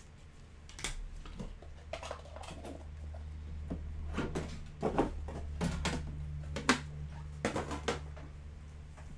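A metal card tin and a cardboard card box being picked up and moved off a table, giving a string of knocks and clatters over a low steady hum.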